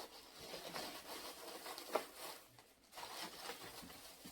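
Rustling and crinkling of packaging as items are moved around inside a subscription box, with light knocks and a sharp click about two seconds in.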